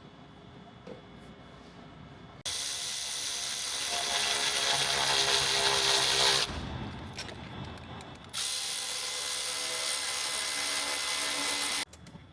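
Cordless electric ratchet spinning a hose-clamp bolt on an intercooler boot in two runs, about 4 and 3.5 seconds long with a short pause between. The motor whines steadily, and the first run grows louder as it goes.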